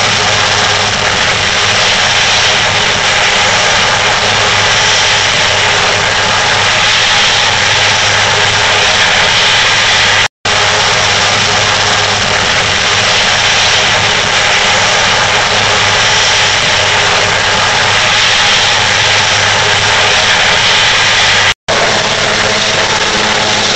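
Twin-turbine Super Puma helicopter running on the ground with its rotors turning: a loud, steady turbine whine and rotor noise over a low hum. It cuts out for an instant twice, and the sound shifts slightly near the end as the helicopter readies to lift off.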